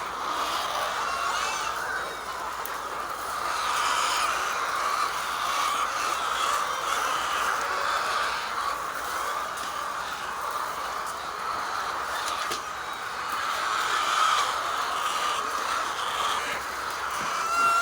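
Many poultry chicks cheeping together in a continuous, dense chorus.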